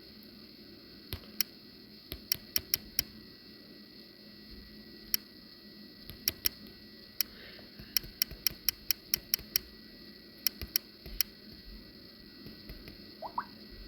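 Irregular runs of sharp clicks from tapping the controls in the drone's gimbal settings, nudging the Fimi X8 SE's horizon adjustment up a step at a time. A short rising chirp comes near the end.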